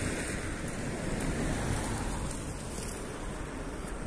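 Steady rushing street noise: road traffic and wind rumbling on the phone's microphone, with no clear single event.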